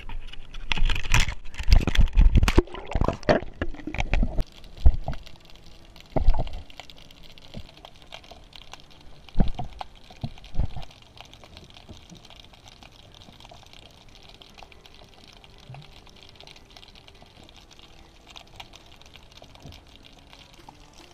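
GoPro in its waterproof housing going into sea water and being lowered on a rope: irregular splashing, bubbling and knocks of the housing for about the first ten seconds, then a steady muffled underwater hiss.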